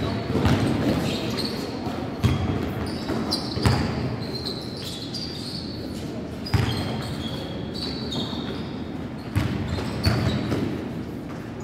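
A basketball bounces on a gym floor a few times at irregular intervals, and short high squeaks, typical of sneakers on the court, come between the bounces. All of it echoes in a large sports hall.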